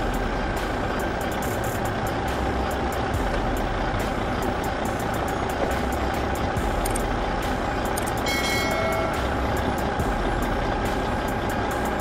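Small electric drive motor and plastic gearbox of a toy remote-control backhoe loader whirring steadily as it drives, with a faint steady whine over a dense noise.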